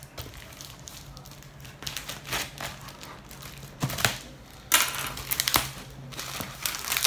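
Plastic parcel wrapping and packing tape crinkling and tearing under the hands, in irregular crackles and short rips, loudest around five seconds in.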